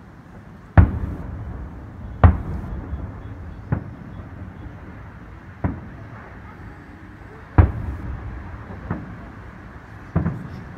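Aerial firework shells bursting in a salute: about seven sharp bangs a second or two apart, each followed by a rumbling echo. The loudest come about a second in, about two seconds in and near eight seconds.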